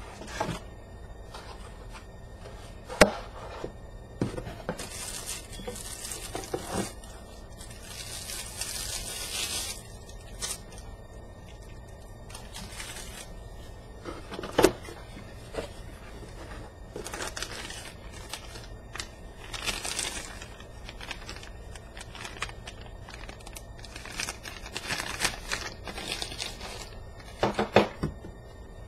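Packaging being handled and opened: plastic and paper crinkling in patches, with a few sharp knocks of boxes and parts being set down.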